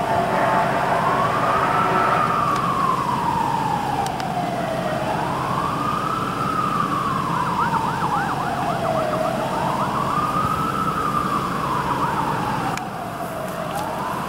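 Emergency vehicle siren wailing, a slow rise and fall about every four and a half seconds, with faint quicker warbling over it in places.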